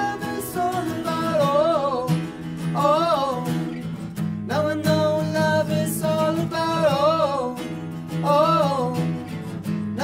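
Male voice singing a folk-pop song over a strummed acoustic guitar, with held notes that bend up and down.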